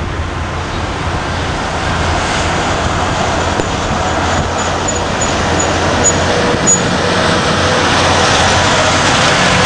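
Street traffic with a heavy truck's engine growing louder as it approaches and turns past, over a steady low hum. A string of faint, short high chirps about halfway through.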